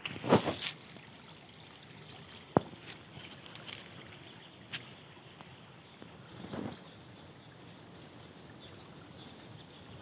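Water trickling steadily in a small forest stream, with footsteps crunching through dry fallen leaves at the start and again about six and a half seconds in, and a single sharp click about two and a half seconds in.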